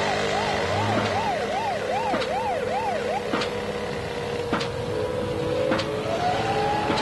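A siren wailing up and down about twice a second, cutting out about three seconds in, over a steady held tone that slides upward near the end. Sharp clicks come a little over a second apart.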